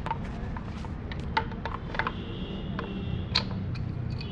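Scattered light metallic clicks and taps as the brake shoes and return springs of a motorcycle rear drum brake are handled and fitted onto the brake plate, over a low background rumble. A steady high tone sounds in the background from about halfway through.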